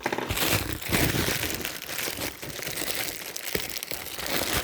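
Parcel packaging crinkling and rustling as it is handled and opened by hand, a continuous crackly rustle with a sharp click about three and a half seconds in.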